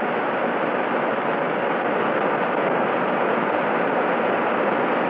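Steady, even rushing machine noise from the magnet laboratory's large generator running under load while the current through the copper rods is raised.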